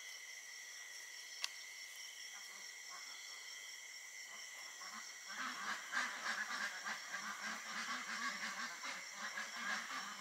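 Steady high chirring of night insects, then about five seconds in a flock of ducks starts quacking, many short calls in quick succession.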